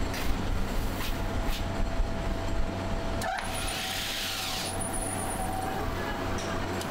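Steady low hum and rumble of factory machinery, with a few knocks in the first couple of seconds, then a sharp click about three seconds in followed by a hiss lasting over a second, over a faint steady whine.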